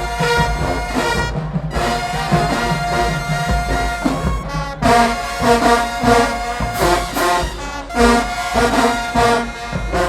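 Marching band brass section (trombones and trumpets) playing a tune over a steady drum beat, loud and full.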